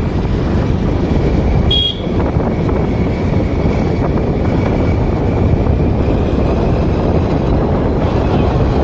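Wind buffeting the microphone over the steady running of a motor scooter's engine and tyres on the road while riding, with a faint steady whine. A single short high beep sounds just under two seconds in.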